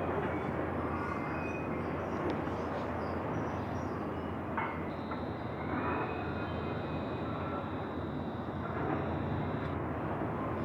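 Steady low rumbling background noise, like vehicles running or idling. A faint, thin high-pitched tone joins about halfway through and stops shortly before the end.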